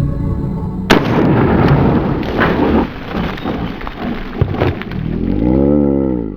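A sudden loud boom about a second in, with a long rumbling tail, then a few sharper cracks. Near the end a pitched tone swells up and falls away. It sounds like gunfire-style intro sound effects.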